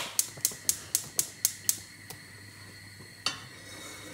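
Gas hob's spark igniter clicking rapidly, about four clicks a second, while the burner knob is held in, stopping a little under two seconds in. A single knock follows near the end.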